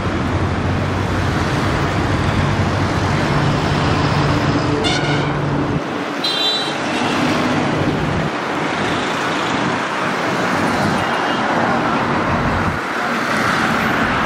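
Diesel tractor engines running at low speed, with traffic noise, and two short horn toots about five and six and a half seconds in. The nearest engine's low hum drops away about six seconds in.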